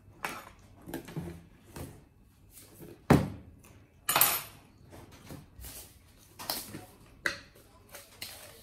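Kitchen clatter of dishes and utensils being handled: a scattering of knocks and clinks, the loudest about three seconds in, with a short rushing noise just after it.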